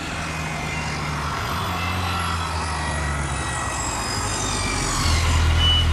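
Cartoon sound effect of the giant Super Robot's engines: a steady low hum with high whines gliding slowly downward, growing louder about five seconds in.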